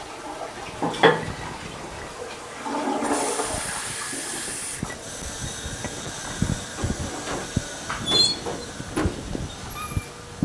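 Toilet flushing, a rush of water lasting about two seconds, after a sharp knock about a second in. It is followed by scattered knocks and clicks.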